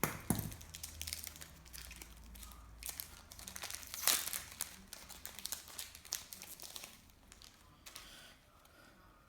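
Wrapper of a trading-card pack being torn open and crinkled in the hands, a busy run of crackles with a sharp burst right at the start and another loud crinkle about four seconds in, dying down after about seven seconds.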